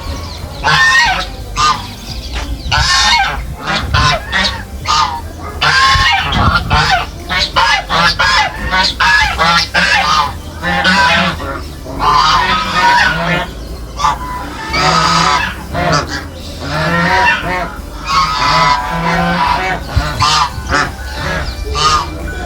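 A flock of farm waterfowl honking and calling, with many loud, short calls overlapping one another without a break.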